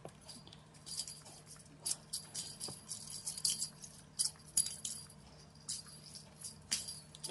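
Small bell jingling in quick, irregular shakes, starting about a second in.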